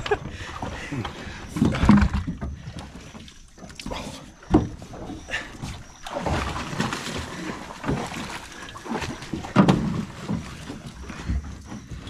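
Aluminium dinghy being worked off a mud bank at low tide as a man climbs aboard: irregular knocks and scrapes on the hull, with splashing in shallow water. The loudest knocks come about 2 seconds in, at about 4 and a half seconds, and at about 9 and a half seconds.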